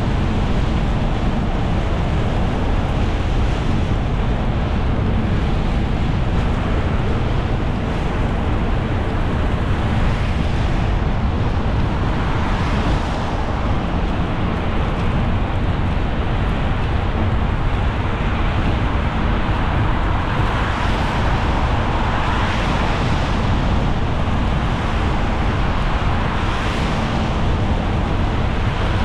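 Car driving on a rain-wet road, heard from inside the cabin: a steady low rumble of the running car with the hiss of tyres on wet pavement. The hiss swells a few times along the way.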